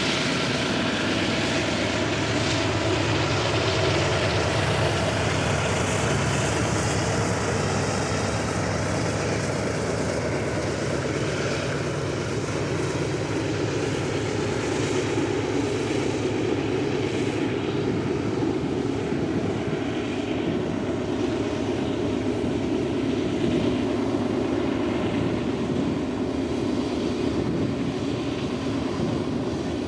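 Union Pacific freight train passing close by: diesel locomotives running with a steady engine drone, the engine hum fading after about twelve seconds while the train's steady rumble carries on.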